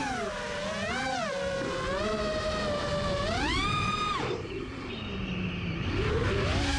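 Five-inch FPV quadcopter's Emax ECO II 2306 1700KV brushless motors and props whining, the pitch swooping up and down with the throttle. There is a short rise about a second in, then a long climb to a high whine, a sudden drop as the throttle is chopped a little past halfway, and a climb back near the end, with a low rushing noise underneath.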